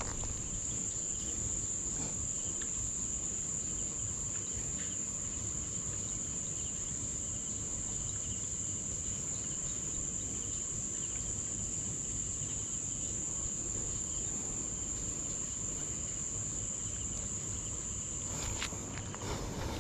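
Crickets trilling in one steady, high-pitched drone, with a fainter, lower trill beneath it; the trilling cuts off shortly before the end.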